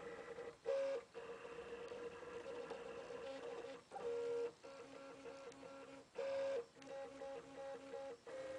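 Stepper motors of a RepRap-style 3D printer whining as the print head moves while printing. The tone is steady at first, then breaks into short choppy runs from about halfway, with a few brief pauses and louder moves.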